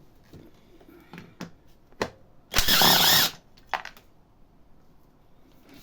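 A handheld power drill runs in one short burst of under a second, its pitch wavering, probably to free a fastener on the motorcycle's rear light. A few sharp clicks of tool handling come just before and just after it.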